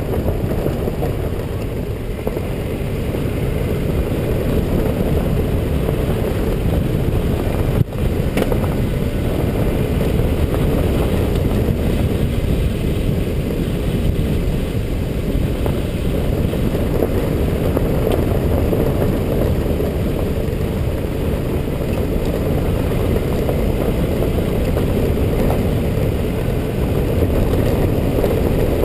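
A road vehicle driving steadily, its engine and tyre noise a continuous low rumble, with a brief click and dropout about eight seconds in.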